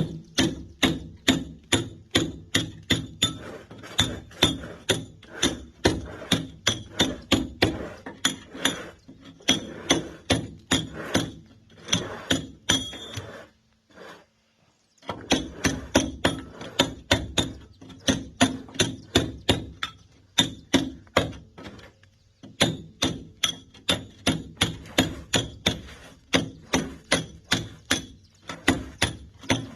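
Hammer striking a steel chisel to break concrete: steady blows about two or three a second, each with a short metallic ring, stopping briefly about halfway through before carrying on.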